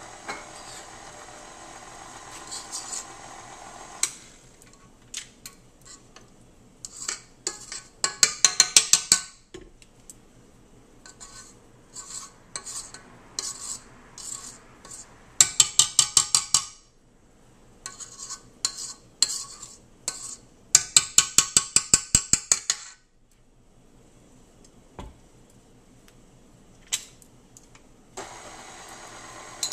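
KitchenAid stand mixer running with its flat beater in a stainless steel bowl, stopping about four seconds in. A metal spoon then scrapes and knocks around the steel bowl in several quick runs of clicks, with single knocks between them. The mixer starts again near the end.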